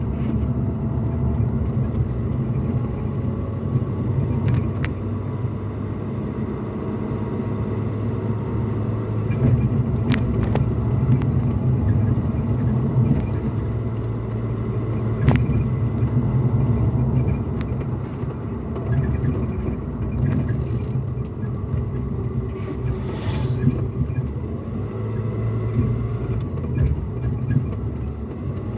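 Pickup truck cabin noise while driving: a steady low rumble of engine and road, with a few faint sharp clicks and a brief hiss about two-thirds of the way through.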